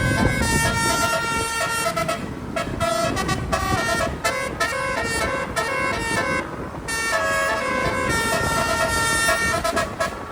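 Bus 'telolet' multi-trumpet air horn playing a tune of stepped notes in loud phrases, with short breaks between them.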